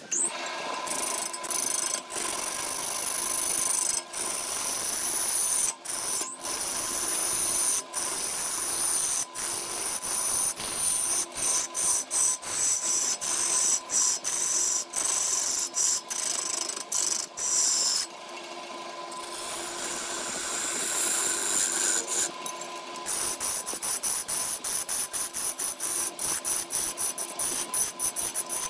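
Turning gouge cutting into a log spinning on a wood lathe: a continuous scraping hiss of shavings being peeled off, broken by many short gaps as the tool lifts off the wood, with a quieter stretch about two-thirds of the way through. A faint steady tone runs underneath.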